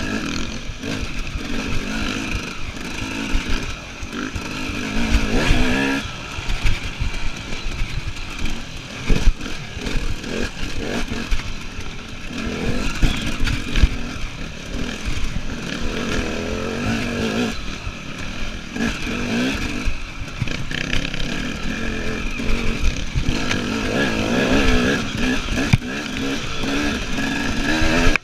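KTM EXC enduro motorcycle engine ridden hard off-road, its revs rising and falling again and again, with frequent knocks and clatter from the bike over rough ground.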